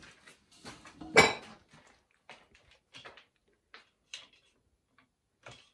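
Hard plastic water-filter parts and housing wrenches clicking and knocking as they are handled, with one louder knock about a second in, then scattered lighter clicks.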